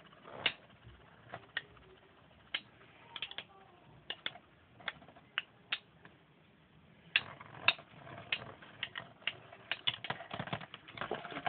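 Two metal-wheeled Beyblade tops spinning in a plastic stadium, giving sharp clicks as they knock into each other every half second or so. From about seven seconds in the hits come thick and fast, with a rattling scrape as the tops grind against each other.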